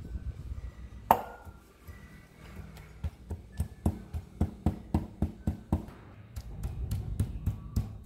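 Wooden pestle pounding sliced ginger in a stainless steel bowl. One sharp strike rings on the metal about a second in, then come even pounding strokes about three a second, growing quicker and duller near the end as the ginger is crushed to a mash.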